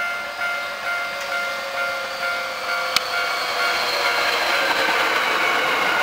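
Level-crossing warning bell ringing a repeating chime about twice a second, soon joined by an eight-car Hankyu 7300/8300 series electric train passing close by. From about three and a half seconds the train's wheel and running noise rises and covers the bell, with a whine that slowly falls in pitch and a single sharp click near the middle.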